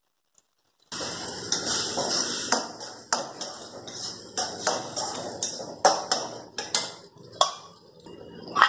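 Metal spoon stirring in a stainless steel kadai of masala gravy: repeated scrapes and sharp clinks against the pan over a steady hiss. It starts about a second in and eases off near the end.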